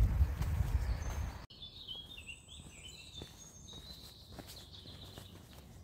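A low rumble that cuts off abruptly about a second and a half in. Small birds then chirp and twitter for a couple of seconds over faint footsteps.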